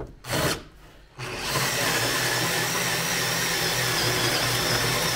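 Power drill on its slowest speed cutting a 38 mm hole: a short blip of the trigger, then from about a second in a steady run with a thin whine.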